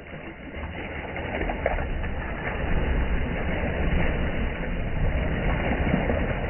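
Fish thrashing and splashing in a cast net at the water's surface as the net is hauled up, the splashing swelling over the first second or two and then keeping up steadily.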